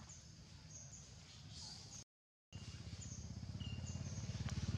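Short, high bird chirps repeating in the background. After the sound cuts out for half a second about two seconds in, a low, rapidly pulsing engine hum comes in and grows steadily louder, becoming the loudest sound.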